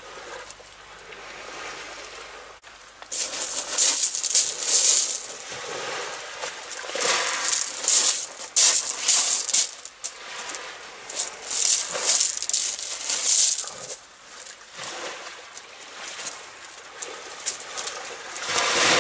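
Sea surf washing on the shore in repeated surges, each a rattling hiss of a second or two, coming every four seconds or so.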